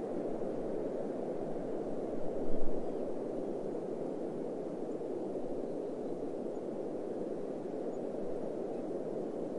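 Steady wind blowing, with a brief low thump about two and a half seconds in.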